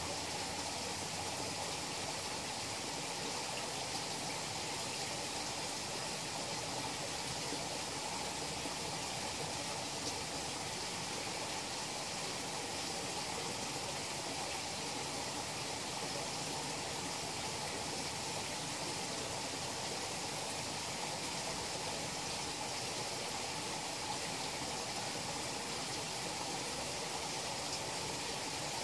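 Steady rush of running water in a koi pond, even and unbroken.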